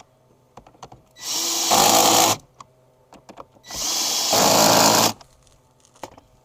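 Power drill driving bolts, run twice for about a second and a half each; each run spins up with a rising whine and gets louder near its end as the bolt tightens.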